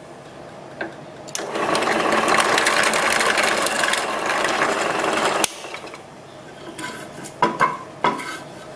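Benchtop drill press running with a twist bit cutting a shallow pilot hole into a wooden board for about four seconds, then cutting off suddenly. A few knocks follow near the end.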